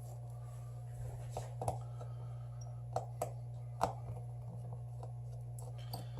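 A few light, sharp clicks of a small screwdriver and tiny screws being taken out of a Samsung Galaxy S7 Edge, over a steady low hum.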